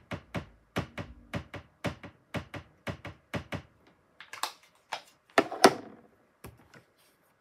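Ink pad tapped repeatedly on a clear sentiment stamp on a stamping platform, a quick run of light taps to ink it. Then come a few louder thunks about four and a half and five and a half seconds in, the second the loudest.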